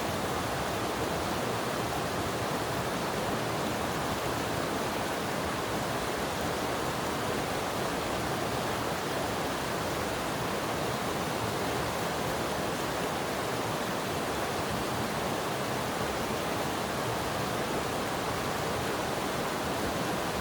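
Clear mountain stream flowing and splashing over rocks in a steady, unbroken rush.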